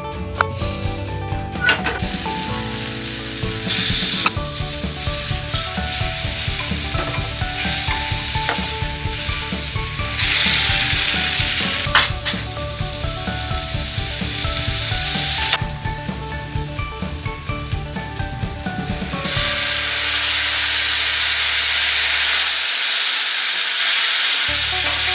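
A knife chopping boiled bamboo shoot on a wooden cutting board for about the first two seconds. Then bamboo shoot slices and meat sizzle as they fry in a pan, a steady hiss that drops back a couple of times.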